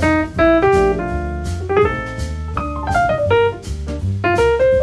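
Background music: a piano melody over a bass line and light drums.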